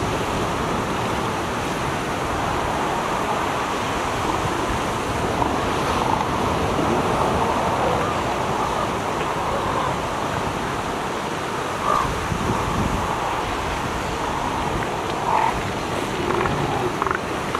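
Steady ocean surf washing, with wind on the microphone and a few faint, short, pitched calls.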